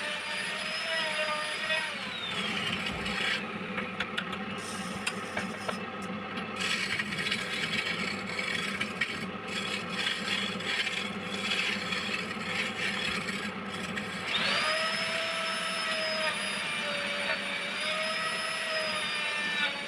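Wood lathe turning a piece of wood, its motor whining steadily while a cutting tool scrapes the spinning wood. About two seconds in the whine drops and gives way to rough cutting and scraping noise, and it comes back, rising in pitch, near the end.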